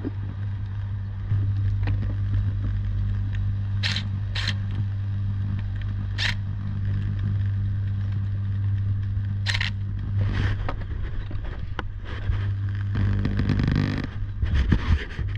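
Metal hardware being worked with hand tools: a few sharp clicks and bouts of scraping, over a steady low hum.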